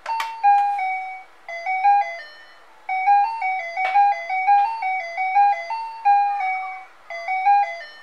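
A children's toy activity cube plays an electronic melody from its speaker after a button press: a click, then a simple beeping tune of single notes stepping up and down in short phrases with brief pauses.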